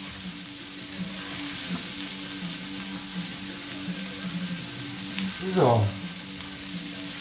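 Diced leek and carrot sizzling in a frying pan on a gas hob, a steady hiss with a low hum underneath. A few light knife taps on a wooden chopping board.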